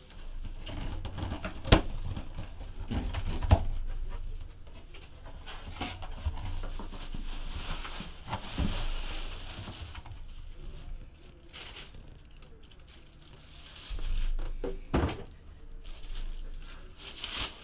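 Clear plastic bag crinkling and rustling around a football helmet as the helmet is handled and lifted out of its cardboard box, with a few scattered knocks and thumps.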